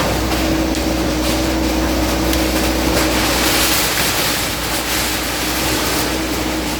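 Diesel engine of a demolition bulldozer running steadily, a constant hum with a steady tone and a wash of noise over it; the tone drops out for a moment past the middle.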